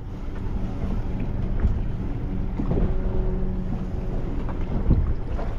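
Wind rumbling on the microphone over the low, steady hum of a boat engine on open water.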